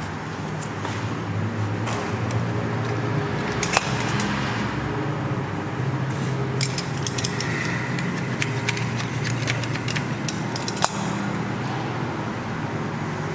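Light clicks and taps as PVC skirting is handled and pressed against the wall by hand, most of them in a cluster about halfway through, over a steady mechanical hum.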